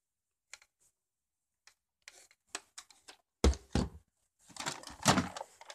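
Plastic clicks and knocks of a Nerf blaster being handled close to the microphone: scattered light clicks, two heavy thumps about three and a half seconds in, then a dense rattling clatter near the end.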